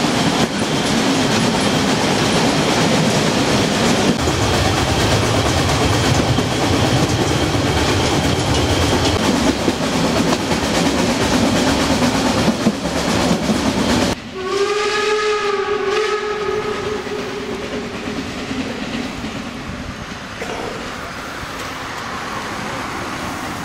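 Loud rolling and rattling of a narrow-gauge railway carriage running over the track, heard from the open gangway between carriages. It cuts off suddenly about 14 s in. Right after, a narrow-gauge steam locomotive gives one long whistle lasting about four seconds, and then quieter running noise from the approaching train follows.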